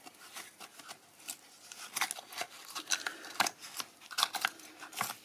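Irregular light clicks and taps of small objects being handled, a dozen or so sharp ticks scattered unevenly, some in quick clusters.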